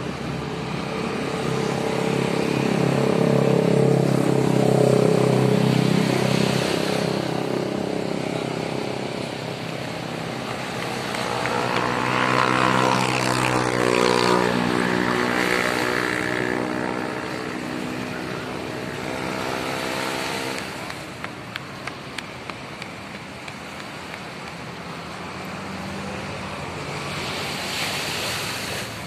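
Motor vehicles passing close by, one after another: a first engine swells up and fades about two to seven seconds in, and a second goes by from about eleven seconds in, its engine note sliding in pitch as it passes.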